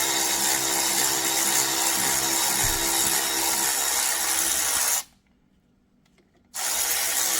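Power wrench running on a 7 mm Allen bit, backing out a brake caliper slide bolt. It runs steadily, stops about five seconds in, and starts again a second and a half later.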